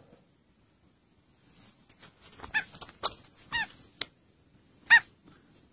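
Short, high-pitched animal calls, three or four of them, each falling slightly in pitch, the last the loudest, with a few sharp clicks between.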